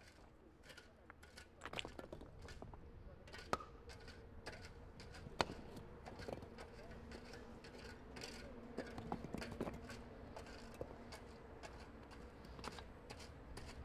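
Irregular sharp clicks and knocks, the two loudest about three and a half and five and a half seconds in, over a faint steady low hum.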